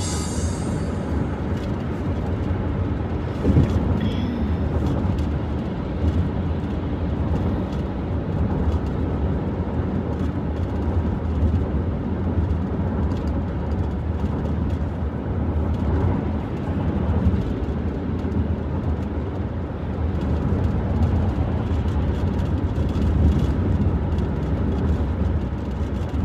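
Steady low road and engine rumble of a car cruising on a freeway, heard from inside the cabin, with a brief bump about three and a half seconds in.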